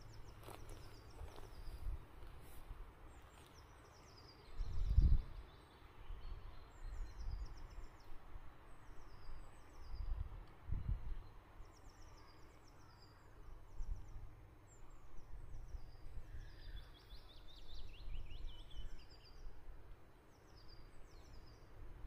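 Small birds singing outdoors: a run of short, high chirps that fall in pitch, with a lower trill about three-quarters of the way through. Low rumbles break in a few times, the loudest about five seconds in.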